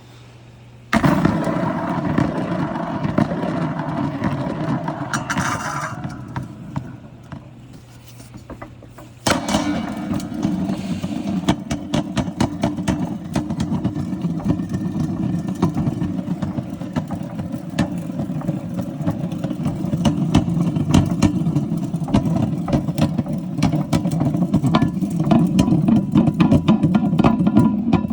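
Marbles rolling down a marble run: a steady rolling rumble peppered with many small clicks and knocks as they hit the track. It starts about a second in, dies away, and starts again just after nine seconds with denser clicking.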